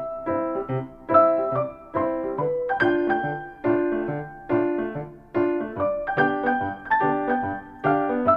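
Background music: a piano or electric-piano melody played in a steady, bouncy rhythm.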